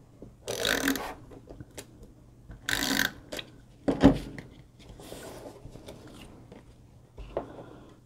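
Tombow Mono Permanent adhesive tape runner drawn across card stock twice, each stroke a short hiss, then a sharp knock as the plastic dispenser is set down on the table, followed by quieter paper rustling.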